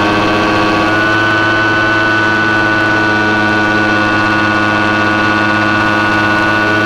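Model airplane's motor and propeller running steadily, heard from on board. It is a loud, even drone whose pitch rises slightly about a second in.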